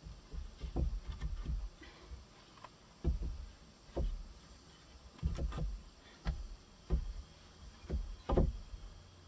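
A series of dull knocks and thuds, irregularly spaced about a second apart, like hands-on work with wood or gear.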